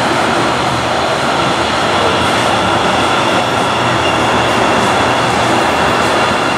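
Guangzhou Metro train running into the station behind the platform screen doors: a loud, steady rumble of wheels and running gear, with a faint high whine coming in near the end.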